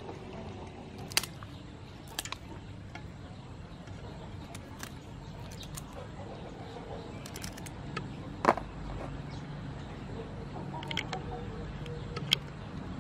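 Scattered sharp clicks and snips as river prawns are handled and trimmed over a steel bowl of water, the loudest about eight and a half seconds in, over a quiet steady background.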